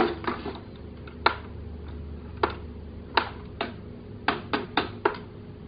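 About ten scattered, sharp plastic clicks and taps as a toy cash register's small microphone and its flexible cord are handled, over a faint steady hum.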